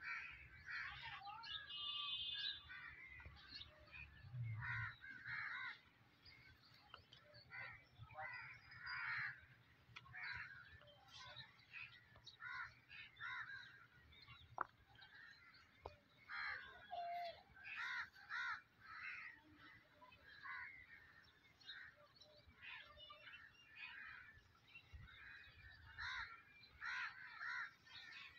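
Crows cawing repeatedly, faint, short calls scattered throughout.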